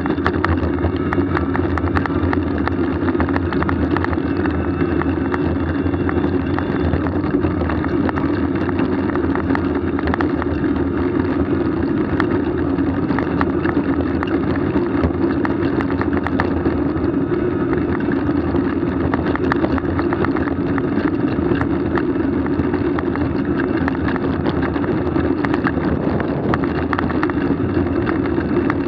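Steady travel noise from a moving vehicle: wind and tyres on the ground, with no change in speed and faint ticks scattered through it.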